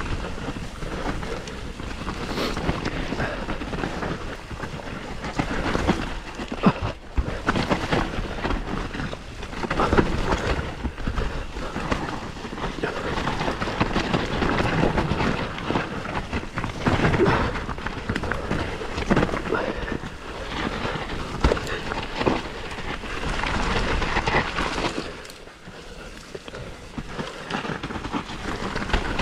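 Santa Cruz Bronson full-suspension mountain bike riding a dirt trail: tyres rumbling over the ground, the bike rattling and knocking over bumps, with wind buffeting the microphone. The noise swings in loudness throughout and dips briefly near the end.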